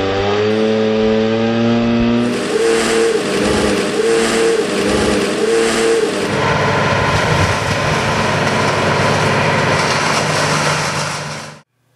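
Chainsaw engine revving up, its pitch rising over the first two seconds, then running with a regular surge about every second and a half. From about six seconds in, a petrol stump grinder's engine runs steadily until it cuts off abruptly near the end.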